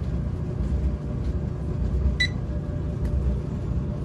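Clothes dryer running with a steady low rumble. A single short beep sounds about two seconds in.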